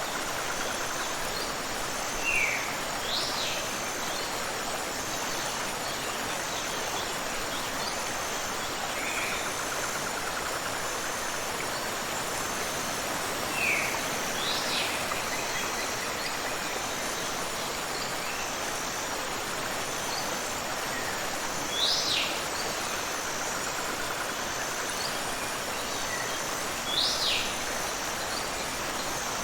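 Steady rush of a tropical waterfall and river. Over it, a bird gives short, high whistles that sweep downward, singly or in pairs, every few seconds.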